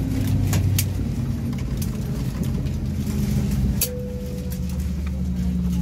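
Steady low hum of an Airbus A320 cabin while parked at the gate, with its air-conditioning running. Scattered sharp clicks and knocks sound over it.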